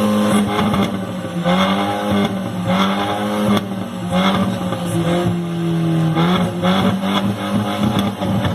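Chevrolet Astra's four-cylinder engine running loud through an aftermarket exhaust diffuser, revved up and let fall back repeatedly, a rise every second or so.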